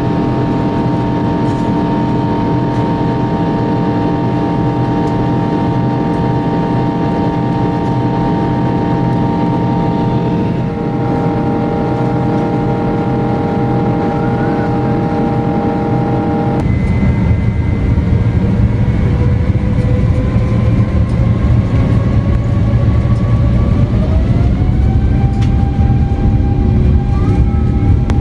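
Boeing 777-200ER's turbofan engines during takeoff: a steady whine of several tones over a rumble. About halfway through, a heavier low rumble comes in suddenly, and near the end the whine rises in pitch as the engines spool up.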